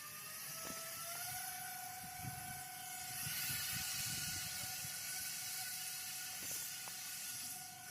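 RC boat's 1800kv brushless motor spinning its air fans, a whine that rises in pitch in the first second or so and then holds steady. A rushing hiss joins it about three seconds in.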